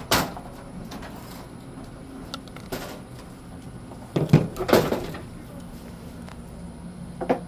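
A storm door being worked open and let swing shut: a sharp latch click, then a loud clatter of knocks a little over four seconds in, and another knock near the end.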